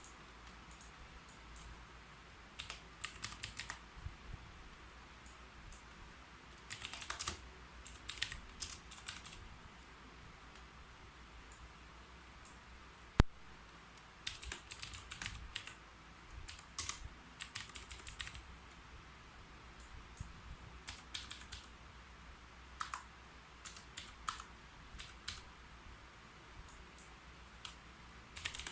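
Keyboard typing in irregular runs of key clicks, with pauses between the runs. One single sharp click about halfway through is louder than the rest.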